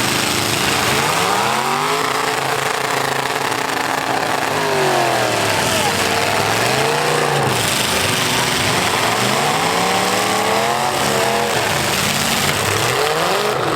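Several big V8 demolition derby car engines revving hard. Their pitch repeatedly rises and falls as the cars accelerate, back up and ease off, over a steady wash of noise.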